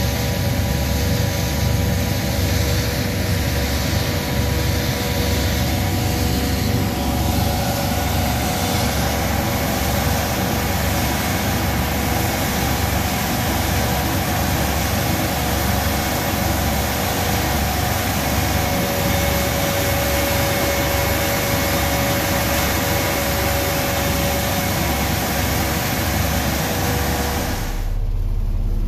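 Steady, loud machinery noise where steel fibre is being fed into concrete mixer trucks: diesel mixer-truck engines running alongside the fibre dosing machine, with a low rumble and a steady whine. Near the end it switches abruptly to a muffled low engine rumble heard inside a truck cab.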